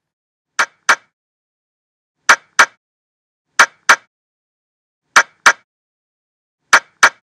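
Five double clicks: each pair is two sharp clicks about a third of a second apart, the pairs repeating about every second and a half with silence between.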